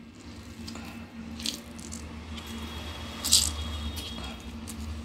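Hands squeezing water out of wet bitter gourds: brief wet squelches, the loudest about a second and a half and three and a half seconds in, over a steady low hum.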